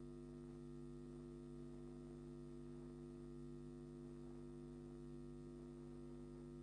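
Faint, steady low hum made of several held tones, with no change in pitch or level.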